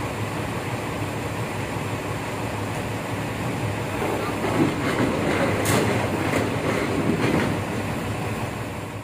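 Hyundai Robex 140LC-9S crawler excavator running and moving on its steel tracks, with the tracks clanking and rattling. It gets louder for a few seconds in the middle, with a run of sharp clanks.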